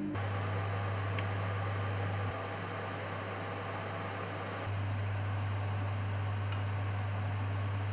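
Steady low hum over an even hiss of fish frying in a lidded pan and potatoes boiling on a gas hob. The hum drops away for a couple of seconds in the middle and comes back, and there are a couple of faint ticks.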